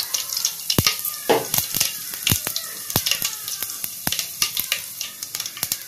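Mustard, fenugreek and cumin seeds sizzling in hot oil: a steady hiss with sharp, irregular pops and crackles, the spluttering of a tempering.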